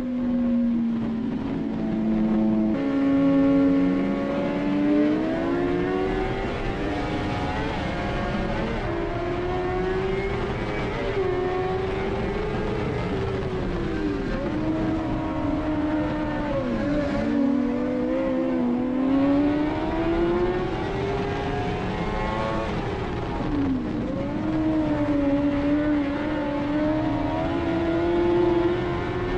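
Dirt-track race car's engine at racing speed, heard from inside the cockpit: a loud, steady engine note that climbs and dips over and over as the throttle is worked through the laps.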